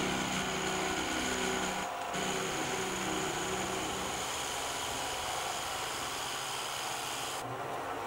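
Metal lathe running steadily while the cutting tool faces a metal block held on the chuck's outside jaws, with a brief break about two seconds in.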